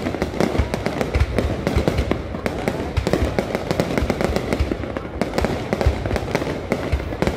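Fireworks going off continuously: a dense, irregular barrage of booms and cracks over a steady crackle.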